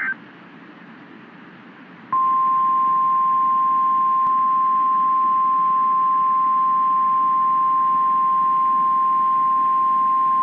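NOAA Weather Radio warning alarm tone: a single steady 1050 Hz tone that starts about two seconds in after faint receiver hiss and holds unbroken. It signals that a warning, here a severe thunderstorm warning, is about to be broadcast.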